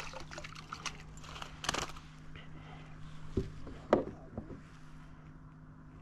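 Water splashing as a hooked crappie is pulled up out of the water beside a kayak, with a second splash under two seconds in, then two sharp knocks about three and a half and four seconds in as the fish is swung aboard and grabbed.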